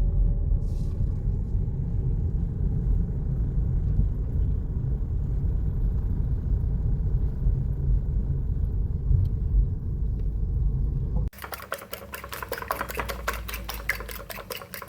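Steady low rumble of a car, heard from inside the cabin. It cuts off abruptly about eleven seconds in and is replaced by a quieter, fast, even tapping of roughly seven clicks a second.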